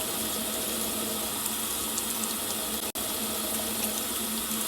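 Water running steadily from a tap into a sink during handwashing, with a momentary break about three seconds in.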